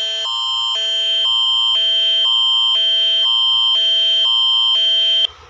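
Emergency alert system alarm tone: a steady high tone over lower tones that switch back and forth about twice a second, like a two-tone warble. It cuts off suddenly near the end.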